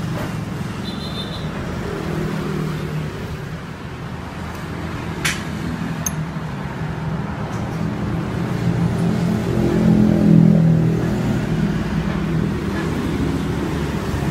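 Edge banding machine running with a steady low hum that swells around ten seconds in. There is one sharp click about five seconds in.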